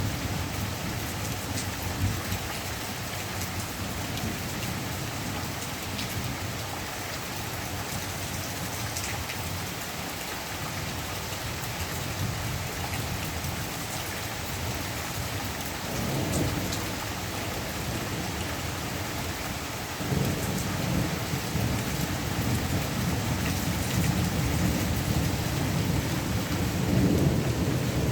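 Steady rain falling, with low rolls of thunder: one swells about halfway through, and a louder, longer rumble sets in about two-thirds of the way in and builds toward the end.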